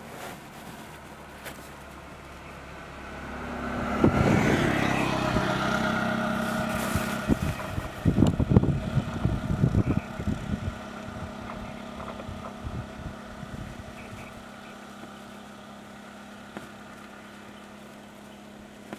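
Road traffic passing close by. A vehicle swells up loudly about four seconds in and fades, then an auto-rickshaw's engine putters past with a quick run of pulses a few seconds later. A steady engine hum runs underneath.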